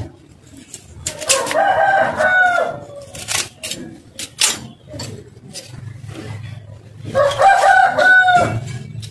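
A rooster crowing twice, each crow about a second and a half long, with sharp knocks between the crows from a knife chopping fish on a cutting block.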